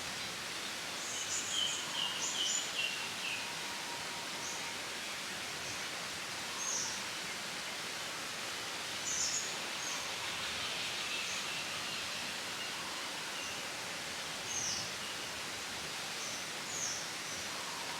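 Small birds chirping in short, high calls scattered through a steady outdoor background hiss.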